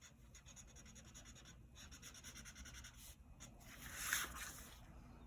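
Marker tip rubbing back and forth on paper while colouring in: a faint run of short scratchy strokes, with one louder stroke about four seconds in.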